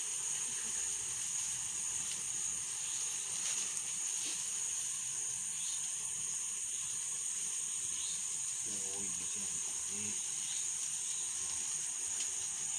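Satay skewers grilling over glowing charcoal being fanned: a steady high hiss with faint crackles, and a voice murmuring briefly about nine seconds in.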